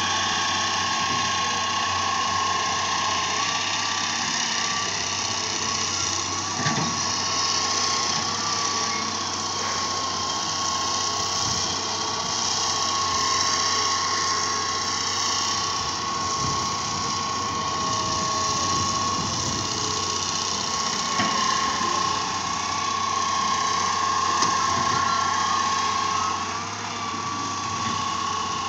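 Diesel engines of a tracked excavator and the farm tractors beside it running steadily as the excavator digs and loads sand, over a steady high whine.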